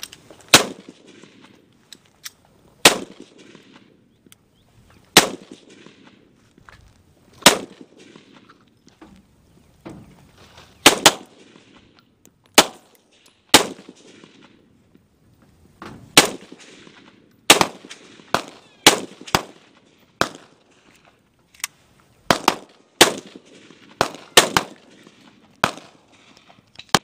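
Type 14 Nambu pistol firing 8mm Nambu rounds: a string of single shots, one to three seconds apart and sometimes in quicker pairs, with a few quieter reports among them.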